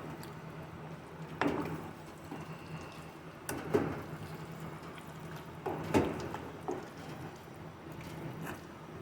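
A spoon scraping and knocking against a cooking pot in irregular strokes as minced meat (keema) is stirred into hot ghee and fried onion, over a steady wet frying hiss; the loudest stroke comes about six seconds in.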